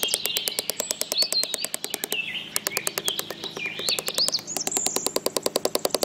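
Birds chirping in short rising and falling calls over a fast, even clicking trill of about ten pulses a second.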